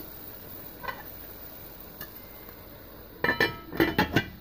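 Aluminium pot lid set onto a pot of simmering rice: two quick clusters of metallic clanks with a short ring, about three seconds in and again half a second later. Before it, a steady faint hiss from the simmering pot.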